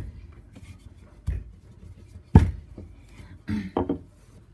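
Wooden rolling pin rolling dough on a granite countertop, with a few separate thuds as the pin is set down and pushed, the loudest about halfway through and a short cluster near the end.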